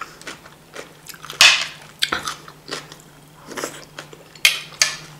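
A person chewing and crunching a mouthful of fresh cucumber salad, with irregular crisp, wet crunches; the loudest come about a second and a half in and twice near the end.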